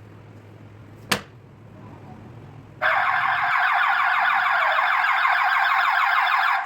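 A sharp click, then about three seconds in a burglar alarm's electronic siren comes on loudly, a fast warbling tone that holds steady.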